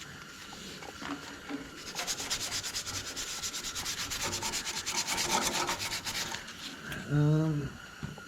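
Quick back-and-forth scrubbing with a Scotch-Brite abrasive pad on a small engine's rusted ignition pickup, several strokes a second, starting about two seconds in and stopping near the end. A short low hum comes just after it stops.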